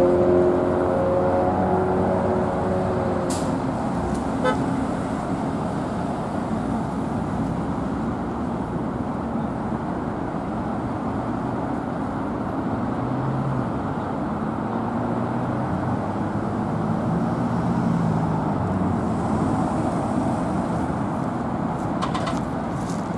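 Steady rush of road traffic, cars passing close by on the road. A pitched, horn-like tone sounds at the start and fades away over the first three seconds.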